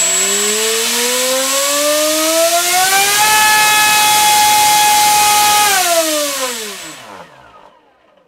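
Tarot TL3723 1700 kV brushless motor spinning a 6.5x6.5 APC pylon racer propeller on a thrust stand, with a loud rush of propeller wash over its whine. The whine climbs steadily for about three seconds, holds at top speed for a couple of seconds, then winds down and stops near the end.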